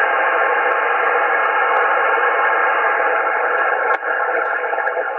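Static hiss of 20-metre band noise from a Yaesu FTDX10 HF transceiver's speaker on receive, steady and cut off above and below like a voice channel. A faint click comes about four seconds in, after which the hiss eases off.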